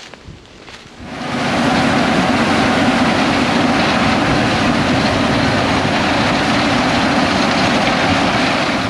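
John Deere X9 1100 combine running while harvesting corn: loud, steady machinery noise with a low hum, coming in suddenly about a second in.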